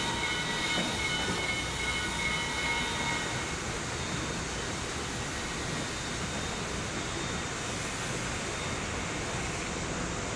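A train running, a steady rushing noise, with several high ringing tones over it for the first few seconds that then die away.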